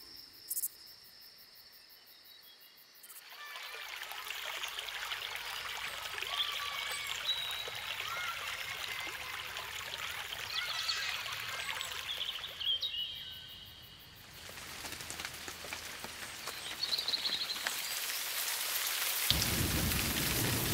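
Steady rain falling in forest, coming in about three seconds in, with birds chirping here and there over it.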